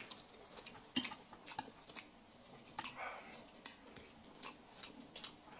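Faint table-side eating sounds: scattered small clicks of chopsticks against a plate and of shrimp shells being peeled. A short soft hiss comes about three seconds in.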